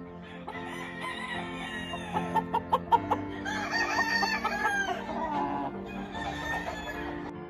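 A gamefowl rooster crowing once, a long arching call around the middle, with sharp short clucks just before it, over steady background music.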